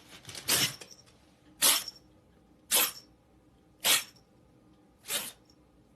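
A cat sneezing five times in a row, short sharp sneezes about once a second.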